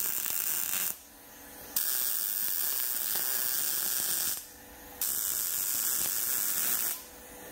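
MIG welder arc running as short welds are laid on 1/8 by 1 inch steel strap tabs: a steady, even sound in three runs of one to two and a half seconds, stopping briefly between each.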